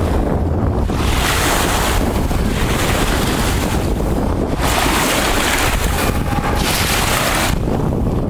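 Wind rumbling steadily on the microphone at the sea's edge, with two hissing surges of about three seconds each, one about a second in and one just after the middle, as small waves wash over the shallows.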